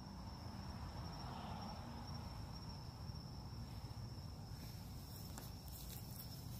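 An insect trilling one steady, unbroken high note, over a low rumble.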